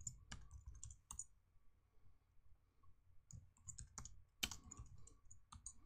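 Faint computer keyboard typing: a short run of key clicks near the start, then a second run from about three seconds in.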